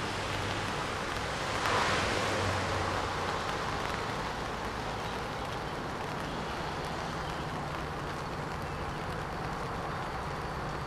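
Steady wind and rain noise on the microphone, with a louder gust about two seconds in. From about halfway a distant approaching diesel train adds a low steady hum.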